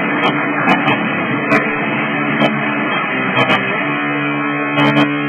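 Music led by strummed guitar, with chords held for a second or more at a time.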